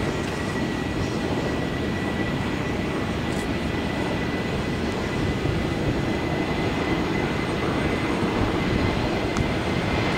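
Boeing 737-800's CFM56-7B turbofan engines at takeoff thrust during the takeoff roll: a steady jet rumble with a thin, steady high whine, growing a little louder about halfway through.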